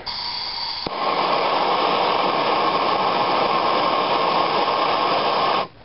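Gas torch: a thin hiss of gas for about a second, then the flame burns with a steady, louder rushing noise that cuts off suddenly near the end.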